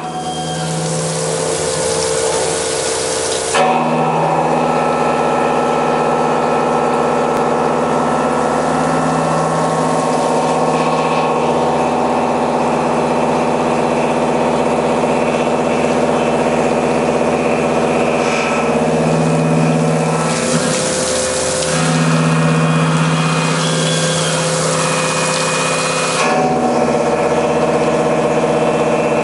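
Large Unisign Uniport CNC machining centre milling a steel railway bogie frame under coolant spray: a steady machine drone with several held tones and a hiss. The sound shifts abruptly a few times.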